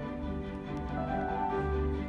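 Live symphony orchestra playing a passage of a piano concerto, bowed strings to the fore over held bass notes.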